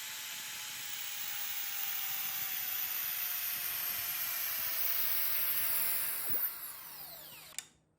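Power drill spinning a part against another in friction welding: a steady grinding hiss with a whine that slowly falls in pitch as it bears down. Near the end there is a sharp knock, the pitch sweeps down as the spin slows, and the sound cuts off suddenly.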